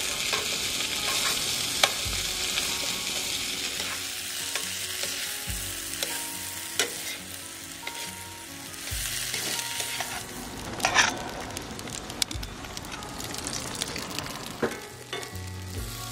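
Chopped onions and garlic sizzling in a steel frying pan over a wood fire, turned with metal tongs that click and scrape against the pan now and then.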